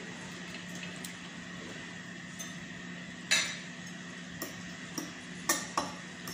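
Metal spoon and fork clinking against ceramic plates and bowls while eating: a handful of sharp clinks, the loudest about three seconds in and two close together near the end, over a steady low hum.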